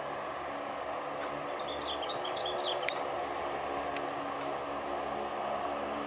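The four turboprop engines of an Antonov An-12BK running steadily with an even drone as it warms up on the runway before the take-off run. A brief run of high chirps partway through.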